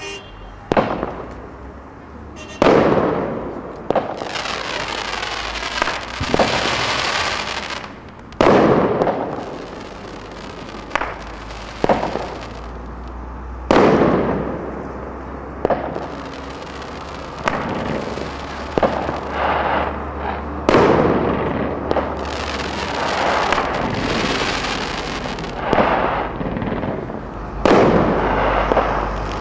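Stealth Fireworks 'Split Tacular' consumer firework cake firing shot after shot: sharp, loud bangs every second or two, many followed by a long crackling fizz from the glitter and crackling crossette stars.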